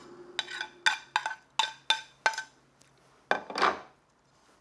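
Metal chopsticks clinking against a ceramic bowl while mixing bibimbap: about seven quick ringing clinks in the first two and a half seconds, then a longer scraping stir about three seconds in.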